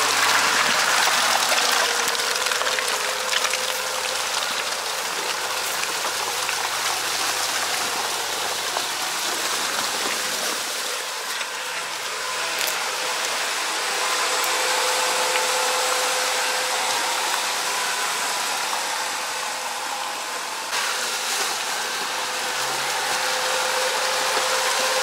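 Off-road vehicle working through mud and water: a steady rushing, splashing noise with a faint steady whine underneath.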